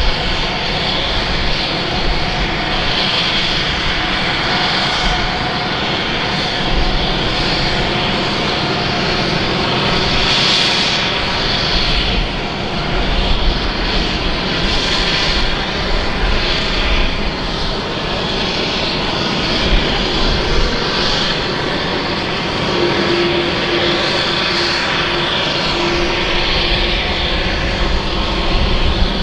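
Airbus A330-300 jet engines running steadily during pushback, a continuous jet noise with a high whine that swells and eases a few times.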